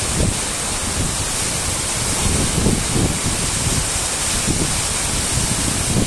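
Tall waterfall pouring into a rocky plunge pool: a loud, steady rush of falling water, with irregular gusts of wind buffeting the microphone.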